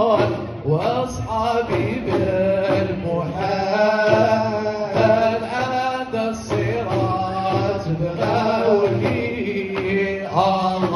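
Hamadcha Sufi ensemble performing live: male voices chanting a devotional song, with drum accompaniment.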